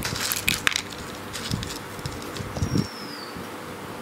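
Background sound with a steady buzz, a cluster of light clicks and rustles in the first second, and a few soft low thumps. One short falling whistle comes about two and a half seconds in.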